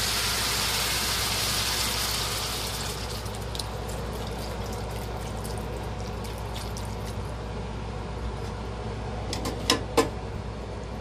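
Beef cubes sizzling in a hot cast-iron skillet as beef broth is poured in from a carton. The loud sizzle drops after a couple of seconds to a quieter hiss with small pops. Two sharp knocks come near the end.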